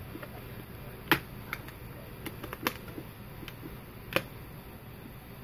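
Several sharp, separate clicks and taps from hands handling small objects, the loudest about a second in and about four seconds in, over a steady low hiss.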